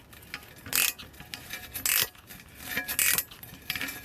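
Ratchet wrench working a freshly freed, rusted exhaust manifold nut off its stud. It makes short rasping clicking strokes about once a second, with lighter metal clicks between them.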